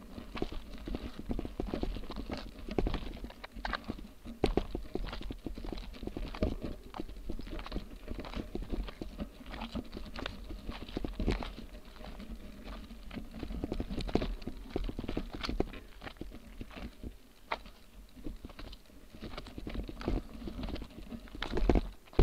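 Knobby rear tyre of a Motobecane Fantom Cross cyclocross bike rolling over loose gravel and dirt, with a constant crunch and irregular clicks and rattles as stones pop from under the tread and the bike jolts, louder near the end.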